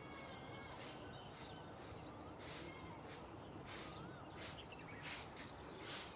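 Faint outdoor ambience with scattered bird chirps and calls: short high-pitched chirps come irregularly over a steady background hiss.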